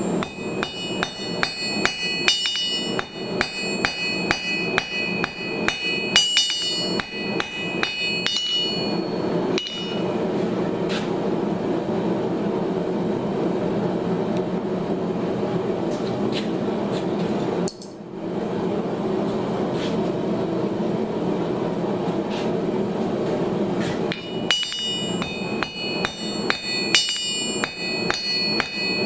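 Hand hammer striking hot steel on an anvil in quick ringing blows, about three a second, as a lag bolt's hex head is forged square. The hammering stops for about fifteen seconds in the middle, leaving only the steady noise of the forge running, and starts again near the end.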